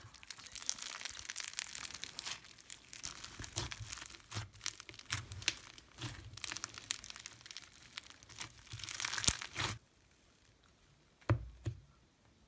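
Slime being squished and stretched by hand, giving a dense run of small clicks and pops that stops about ten seconds in. A couple of faint clicks follow.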